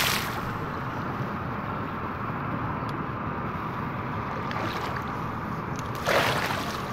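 Low, steady rushing of water and wind around the boat, then about six seconds in a sudden splash as a large musky thrashes at the edge of the landing net.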